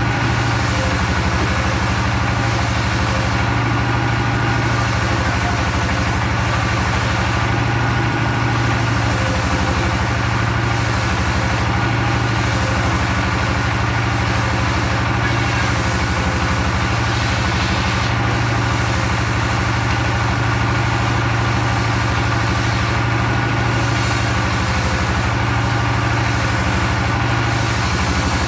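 Engine of a log-cutting circular sawmill running steadily at an even pitch, with a constant low hum.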